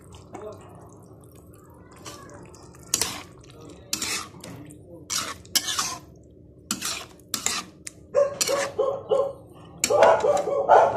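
Metal spatula scraping and clanking against a wok as chayote and boiled eggs in oyster sauce are stirred, in separate strokes. Near the end a dog barks repeatedly.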